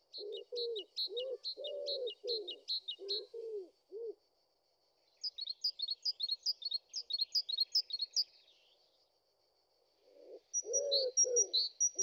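Pigeon cooing in low repeated phrases, stopping a few seconds in and starting again near the end, while a small songbird chirps in quick high runs.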